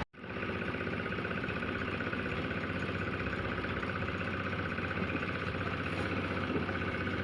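An engine running steadily at an even speed, after a momentary cut-out in the sound at the very start.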